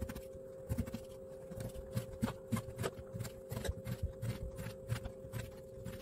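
Kitchen knife dicing eggplant on a wooden cutting board: a run of knocks as the blade cuts through and strikes the board, about two or three a second.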